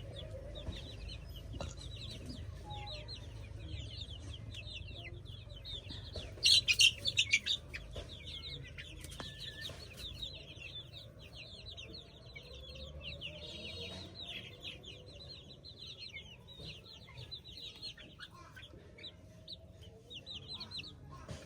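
A flock of chickens, mostly many chicks peeping continuously in short, high, falling notes. About six and a half seconds in there is a brief louder burst of sharp calls.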